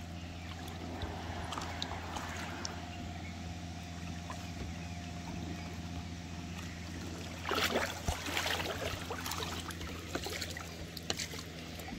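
Water splashing and trickling as an oar is worked in a water-filled inflatable boat, with a louder burst of splashing about halfway through, over a steady low hum.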